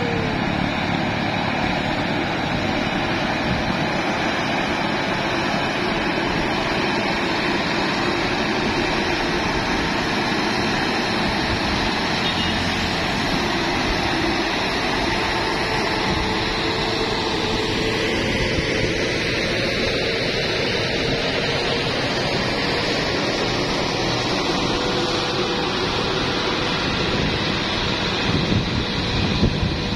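Heavy diesel truck engine running steadily as a loaded Hino truck passes close by.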